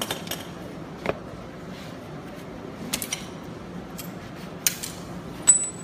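Scattered sharp metal clicks and clinks as bolts and parts are handled against the steel housing of a robot arm's gear reducer, about six in all; the loudest comes near the end and leaves a brief high ring. A steady low hum runs underneath.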